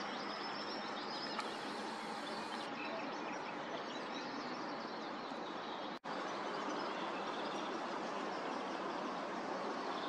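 Steady outdoor background hiss with faint, high bird chirps during the first second or so. The sound drops out for an instant about six seconds in.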